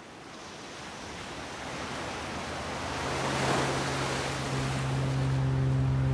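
Sea waves washing in, the surf growing steadily louder with a wave breaking about halfway through. A low, steady held tone with overtones comes in partway and holds.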